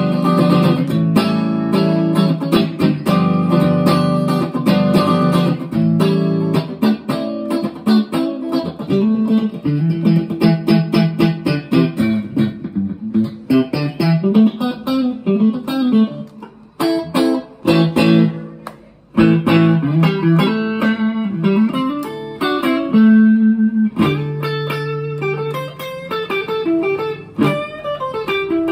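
Elioth S305 electric guitar played through an amp on a clean tone, picking single-note lines and chords on the middle and neck pickups together, then the neck pickup alone near the end. The playing drops out briefly a little past halfway.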